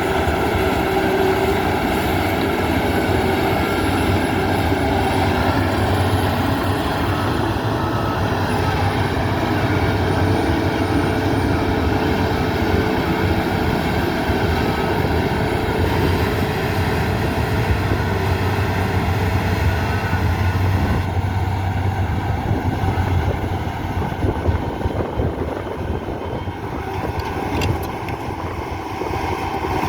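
Heavy earthmoving machine's diesel engine running steadily under load, with a low rumble and a mechanical clatter, easing off a little about two-thirds of the way through.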